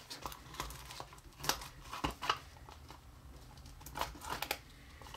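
Plastic wrap crinkling and tearing as it is pulled off a small cardboard toy box, in short scattered crackles with a bunch about halfway through and another near the end.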